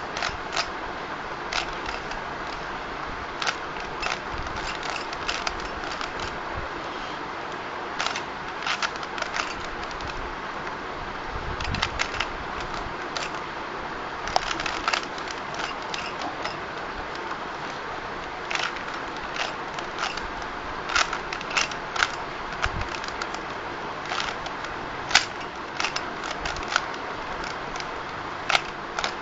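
Plastic Rubik's Cube being turned quickly during a speed solve: irregular clicking and clacking of the layers, in quick flurries with short pauses, over a steady background hiss.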